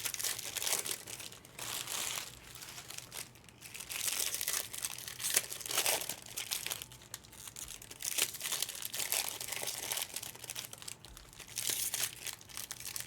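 Irregular crinkling and rustling of crinkly plastic or foil wrapping being handled, in uneven bursts.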